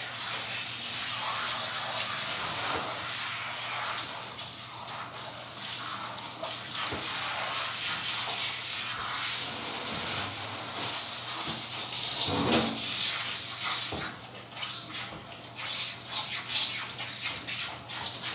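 Water hissing from a hand-held sprayer as a dog's coat is rinsed in a grooming tub. Near the end the spray cuts in and out in short spurts.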